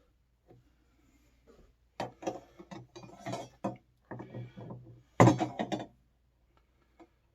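Irregular clicks, scrapes and rattles of a replacement electric water heater element and its new gasket being handled and lined up with the tank's threaded port, the loudest clatter about five seconds in.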